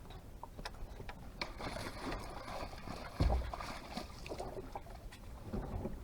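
Handling noises in a small boat: scattered clicks and knocks, a stretch of rustling, and one heavy low thump against the hull about three seconds in.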